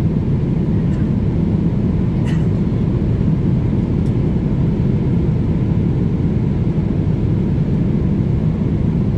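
Steady cabin noise of a Boeing jet airliner in flight: an even, low roar of the engines and the airflow over the fuselage, with no change in level.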